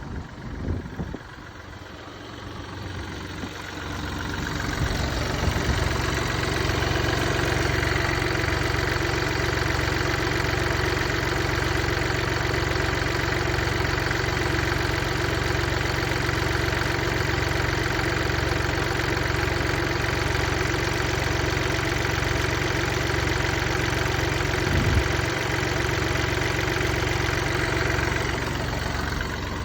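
Mini Cooper D three-cylinder diesel engine running with a rhythmic knock, the sign of a broken dual mass flywheel whose springs are worn out. It grows louder over the first few seconds, holds steady, and eases off near the end.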